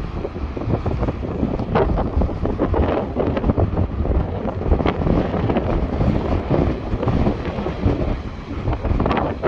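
Sea waves breaking and washing up the beach, a continuous noisy surge with crackling foam, under heavy wind rumble on the microphone.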